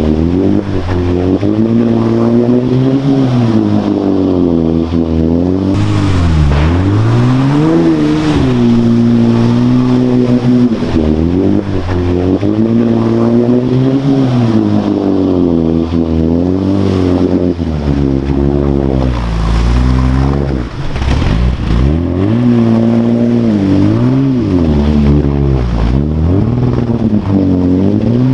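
Off-road military truck engine working hard, its revs repeatedly climbing and dropping every second or two as the driver works the throttle and gears.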